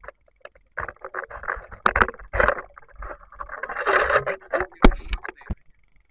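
Irregular rustling and scuffling in dry leaf litter and twigs as a hand grabs at a giant freshwater prawn, with a few sharp snaps; it stops abruptly near the end.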